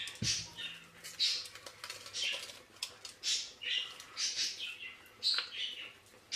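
Hand-held stainless steel potato ricer squeezed over a steel pot: boiled potatoes squishing out through the holes in a string of short, wet squelches, about one or two a second, with a couple of metal clicks from the ricer.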